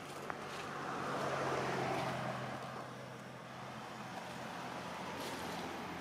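A motor vehicle passing by with a steady engine hum. The noise swells to its loudest about two seconds in and then fades.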